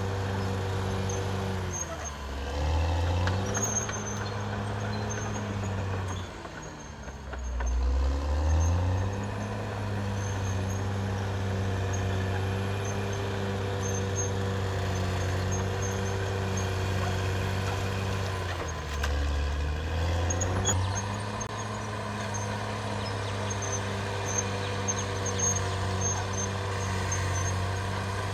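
Caterpillar D6R XL bulldozer's diesel engine working, its pitch dipping and climbing back several times: about two seconds in, from about six to eight seconds, and near nineteen seconds. The dips are the engine pulling down under the load of the blade and recovering.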